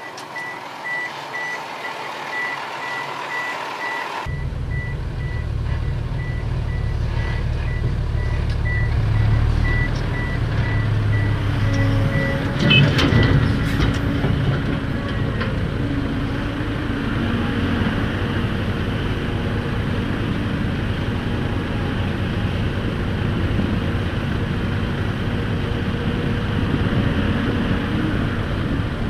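A heavy dump truck's reversing alarm beeps steadily, about three beeps a second. A few seconds in, the truck's diesel engine comes in suddenly, low and loud, and runs on under the beeps. The beeping stops about halfway, with a brief knock at that point, and the engine keeps running.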